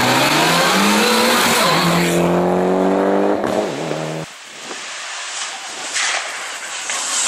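Rally car engine at full throttle, its pitch climbing for about two seconds, then the engine note falling away for another two seconds. About four seconds in the sound drops abruptly to a quieter stretch of car noise with a few sharp cracks.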